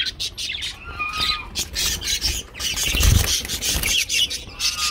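Clicking and rattling of a wire bird cage and its hanging clay pot nest being handled, with a low knock about three seconds in. A few short bird chirps sound over it, one about a second in and another near the end.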